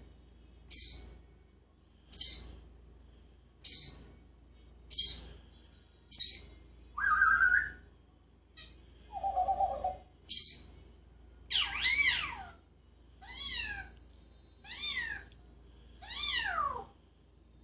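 Pet parrot calling: a run of short, sharp high-pitched calls about every second and a half, then two lower calls, then several longer whistled calls that rise and fall in pitch.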